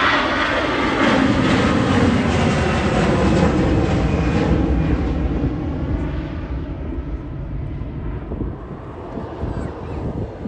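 Airliner passing close, its engine noise falling in pitch and fading away as it moves off.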